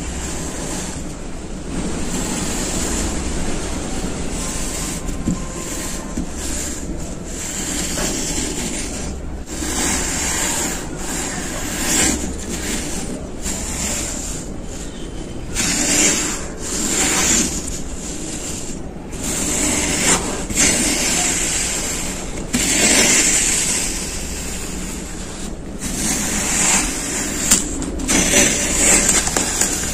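Stainless steel melon baller scooping and cutting through kinetic sand in a plastic tub: a gritty scraping hiss that swells with each stroke and drops in short pauses between strokes.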